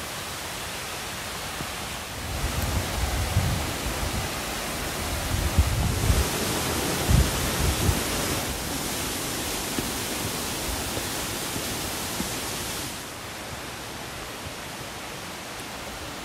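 Steady rushing of a mountain creek's running water, fuller through the middle. Irregular low rumbles and bumps sit under it from about two to eight seconds in.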